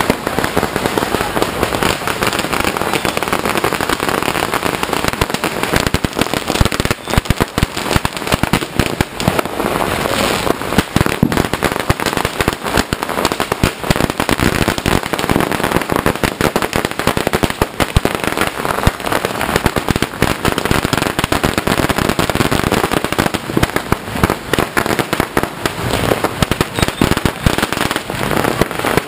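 Strings of firecrackers going off nonstop, a dense rapid crackle of loud bangs with no pause.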